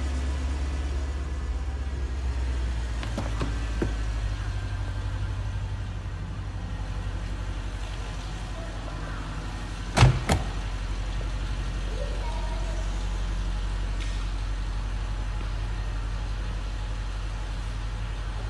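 2011 Porsche Panamera Turbo's 4.8-litre twin-turbo V8 idling steadily with a low rumble. About halfway through, a car door is shut with two quick thuds.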